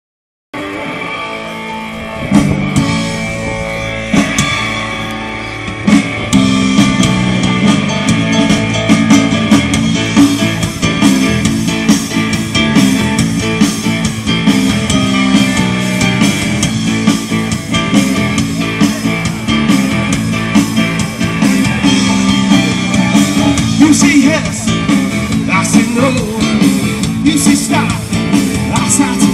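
Rock and roll music from a band: guitar, drum kit and singing with a steady beat, getting louder and fuller about six seconds in.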